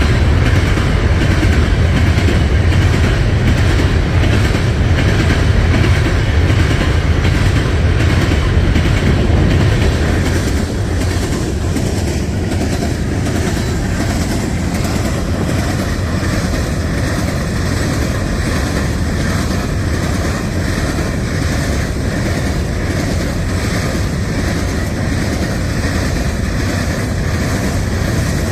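Train cars rolling past at close range with a steady rumble, wheels clicking over the rail joints. It eases slightly about ten seconds in.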